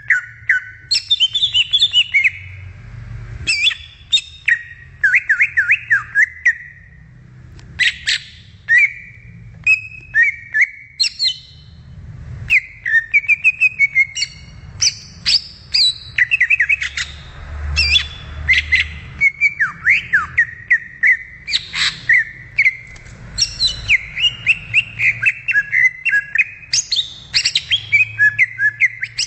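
Green leafbird (cucak ijo) singing a long, varied run of rapid whistles and chirps, full of quick up-and-down slurs, with only brief pauses.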